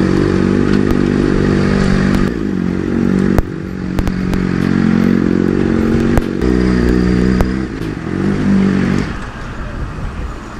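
Sport motorcycle's engine running at low, steady revs, heard from the rider's helmet as it creeps between stopped cars; the engine note shifts a couple of times and fades near the end. A single sharp click about three and a half seconds in.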